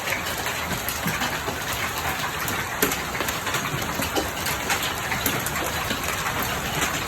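Large hail pelting down: a dense, steady hiss of falling ice with many sharp clicks and knocks of hailstones striking at irregular moments.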